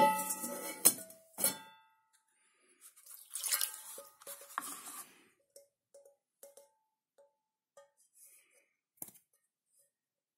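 Enamelled steel saucepan clinking as it is handled, with a short ringing tone after the knocks in the first second or so. A scraping rustle follows about three seconds in, then a few faint taps and a single click near the end.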